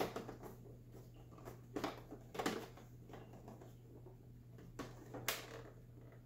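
Fingers pressing and pushing on the plastic side cover of an XYZ da Vinci 3D printer, giving a handful of soft, scattered knocks and clicks over a low steady hum.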